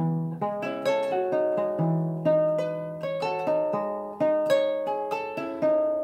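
Kora, the West African harp-lute, being plucked: a flowing run of ringing notes over a recurring low bass note, each pluck left to ring on under the next.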